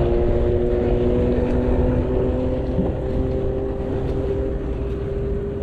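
Boat outboard motor running at a steady pitch, with wind rumbling on the microphone.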